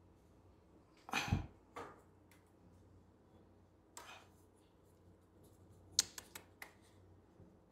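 Quiet handling noises of fingers picking at a knotted tie inside a metal filing-cabinet drawer: a few soft rustles, a muffled bump about a second in, and a quick run of small sharp clicks about six seconds in.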